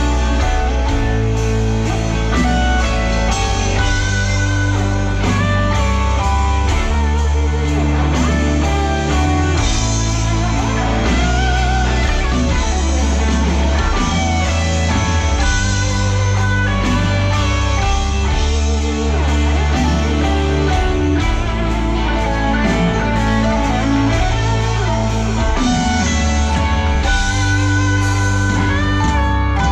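Live rock band playing, electric guitar over a heavy bass and drums keeping a steady beat.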